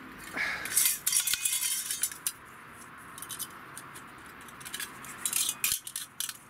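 Metal clinks and rattles of a folding pocket stove being handled and unfolded, in two bursts: one starting just after the beginning and another near the end.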